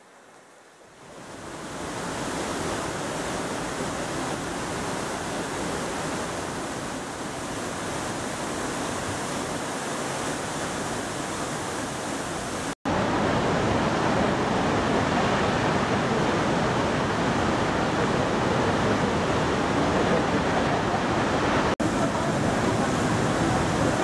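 Steady rush of falling water from waterfalls. It fades in about a second in as water pours over a mossy rock face. After a sudden short break a little before halfway, a louder, heavier rush follows from a large waterfall.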